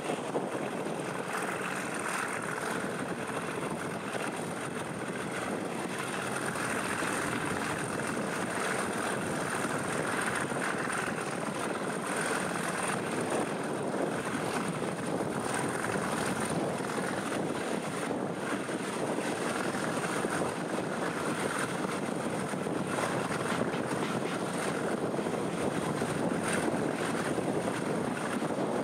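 Diesel locomotive working hard at the head of the train, heard from an open carriage window, mixed with wind rush and the running noise of the coaches on the track. A thin high whine sits above the steady engine noise.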